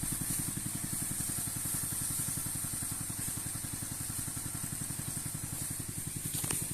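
Sanchin power sprayer's small engine running steadily, with a fast, even pulsing and a constant high hiss over it, as it pumps herbicide through a long spray hose.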